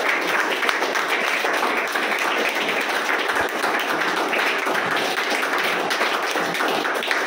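A group of children clapping their hands in steady, continuous applause.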